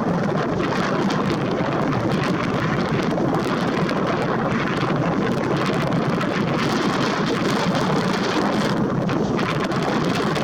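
Storm wind blowing hard and steadily, buffeting the microphone.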